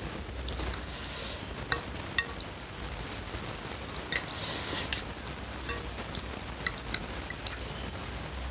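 Metal fork and spoon stirring and lifting instant noodles in broth in a bowl, with scattered sharp clinks of cutlery against the bowl and short bits of soft wet swishing.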